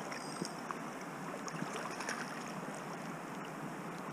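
Steady rush of a flowing creek's riffled current, with a few faint ticks scattered through it.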